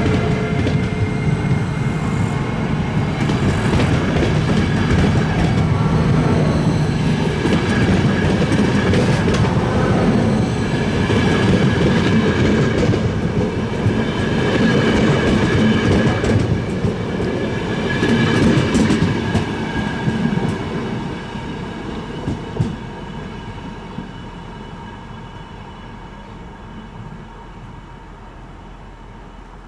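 Locomotive-hauled passenger train of ÖBB coaches rolling past close by as it departs: a loud, steady rumble of wheels on track that fades away over the last third as the train draws off.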